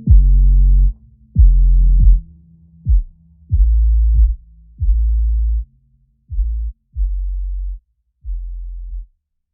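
Electronic background music: a run of deep bass notes, each opening with a quick downward pitch sweep, about one a second, growing quieter toward the end.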